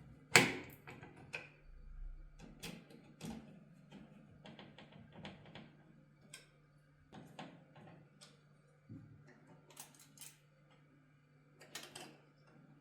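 Irregular clicks and light knocks of computer parts being handled and fitted, with one sharp click about half a second in, over a steady low hum.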